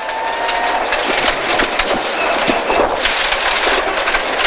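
Gravel stones rattling and spraying against the underside and wheel arches of a Mitsubishi Evo 9 rally car, heard from inside the cabin. A dense hiss of tyres on loose gravel is broken by many sharp stone clicks.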